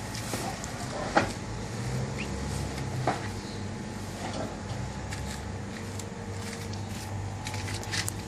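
Handling of a TV stand wrapped in a woven plastic sack: two sharp knocks, the louder about a second in and another about three seconds in, with scattered crinkling of the sack, over a steady low hum.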